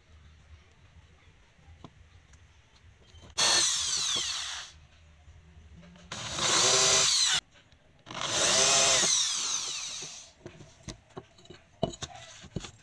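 Small handheld electric drill boring a thin pilot hole into the top of a wooden axe handle, in three short runs, its motor pitch rising as it spins up and falling as it winds down. A few light knocks follow near the end as the axe is handled on the wooden bench.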